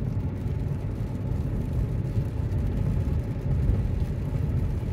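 Road noise inside a moving car: a steady low rumble of tyres and engine on a rain-wet road.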